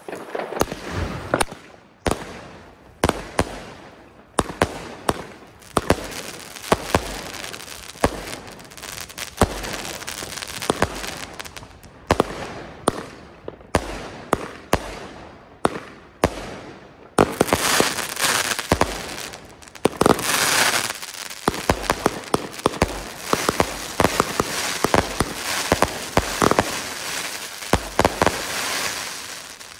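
40-shot, 25 mm XPLODE Z-Generation firework battery firing. Its brocade-crown shells launch and burst one after another in a long run of sharp bangs, with a stretch of continuous hissing and crackling a little past halfway.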